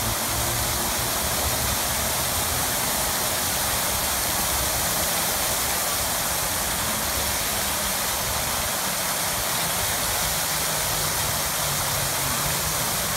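Large outdoor fountain: rows of water jets splashing steadily into a basin.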